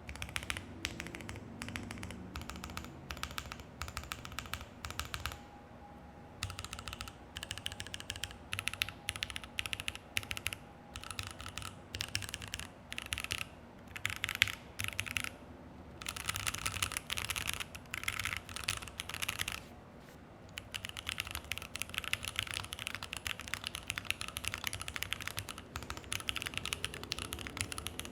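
Typing on a Keychron Q1 mechanical keyboard with JWK T1 tactile switches, an FR4 plate and PBT keycaps: a steady stream of keystrokes and key returns, paused briefly a few times.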